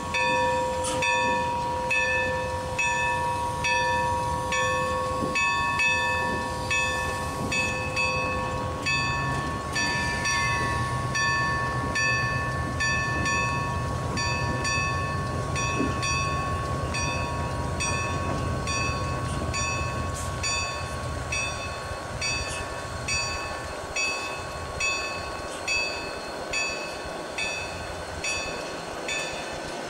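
Bell of Milwaukee Road 261, a 4-8-4 Northern steam locomotive, ringing steadily at about two strokes a second as the engine moves off, over a steady whining tone and the locomotive's low rumble.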